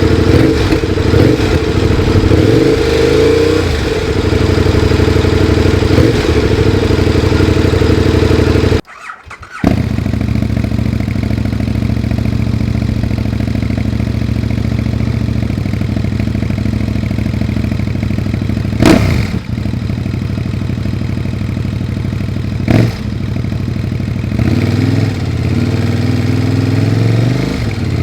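KTM 1050 Adventure's V-twin engine running through an aftermarket Leo Vince LV One Evo exhaust end can, idling with a deep note and revved a few times, the pitch rising near the start and again near the end. The sound breaks off for about a second about a third of the way in, and there are two short, sharp peaks later on.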